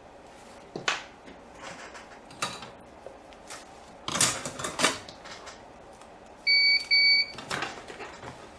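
Two short electronic beeps from bench equipment, back to back about two-thirds of the way in, among sharp clicks and knocks from tools and the phone board being handled at a microsoldering bench.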